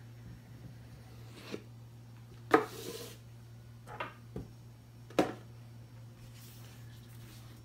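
Hands handling packaging and boxes: a handful of short knocks and taps, the loudest about two and a half seconds in with a brief rustle after it, over a steady low hum.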